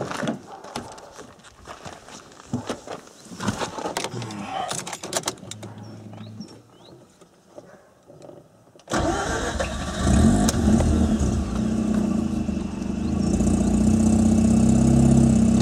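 Scattered clicks and knocks, then about nine seconds in the Mazda RX-8's twin-rotor Renesis rotary engine starts suddenly and settles into a steady idle, heard from inside the cabin. It is the first start after the car was reassembled with new performance ignition coils.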